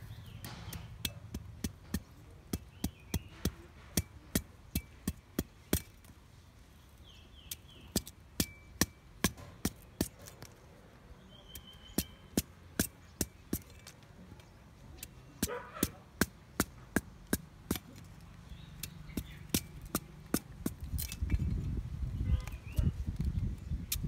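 A cleaver blade knocking into and shaving the rind off a sugarcane stalk: sharp knocks, about three a second, in runs broken by short pauses.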